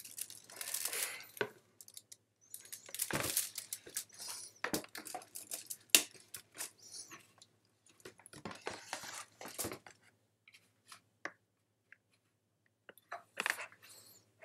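Aluminium foil crinkling and tearing as it is handled, with scattered sharp clicks and knocks, in irregular bursts through the first ten seconds. Only a few isolated clicks and a short rustle follow about three-quarters of the way in.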